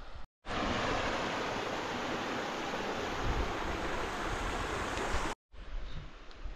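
Steady rush of flowing water in a gorge creek, starting abruptly about half a second in and cutting off just after five seconds.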